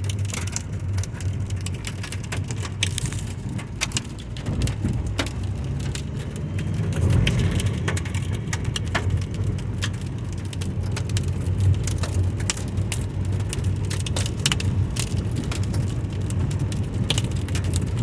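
Volcanic stones and lapilli thrown out by an Etna eruption raining down: many irregular sharp clicks and ticks of small stones striking the ground, over a continuous low rumble that grows louder about seven seconds in.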